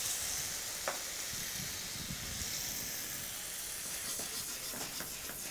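Minced garlic, red pepper flakes and olive oil sizzling steadily in a stainless steel skillet just after a splash of vodka has gone in to finish the pan. A single light click about a second in.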